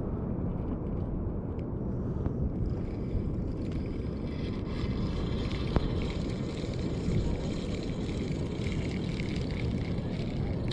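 Wind buffeting the microphone, a steady low rumble, with a higher hiss joining in about three seconds in and a single sharp click midway.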